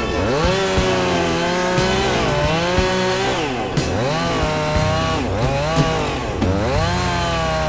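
Chainsaw cutting soft maple wood, its engine pitch dropping as the chain bites and climbing back again, several times over.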